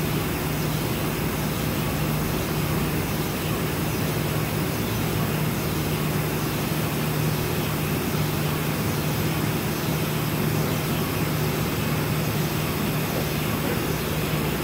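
Steady hiss of air being sucked into the vacuum jacket of a GE 0.7 T MRI magnet past its partly drawn vacuum port plug, as the insulating vacuum is released. A steady low hum runs underneath.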